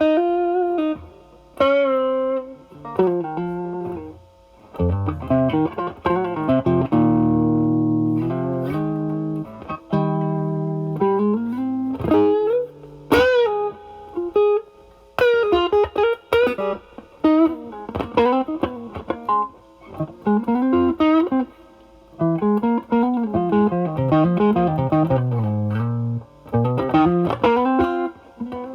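Electric guitar, a Stratocaster with single-coil pickups through an Ibanez Tube Screamer Mini overdrive (drive at zero) into a Marshall Valvestate amp's drive channel, playing improvised lead phrases: single notes with bends and vibrato, and a few held chords between about 5 and 11 seconds in.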